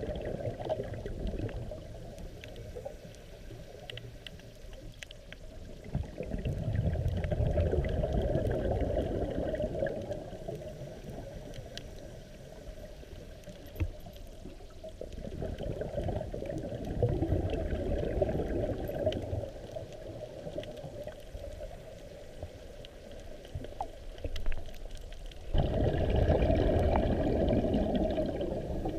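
Scuba diver's regulator breathing recorded underwater: three long rushes of exhaled bubbles, about ten seconds apart, with quieter inhalation between.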